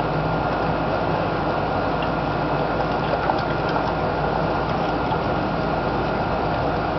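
Steady, even background noise with a low hum underneath, unchanging throughout, with only a few faint ticks.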